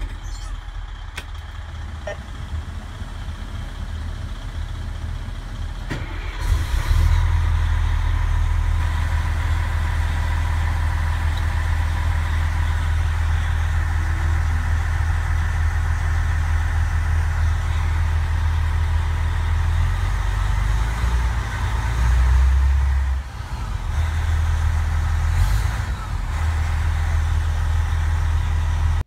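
A military truck's diesel engine just started with the key and running with a steady low rumble. It gets louder about seven seconds in and then holds steady, with brief dips near the end.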